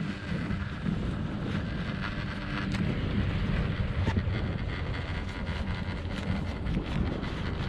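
Wind buffeting the microphone: a steady, rumbling rush of noise with a few faint ticks scattered through it.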